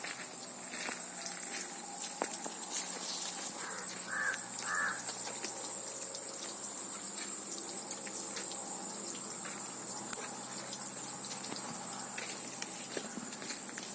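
Outdoor farm ambience: a bird gives two short calls in quick succession about four seconds in, over a steady high-pitched tone, a constant hiss and scattered faint clicks.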